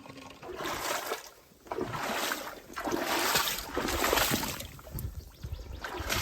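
Canoe paddle strokes through lake water: swishing and splashing that swells and fades about once a second.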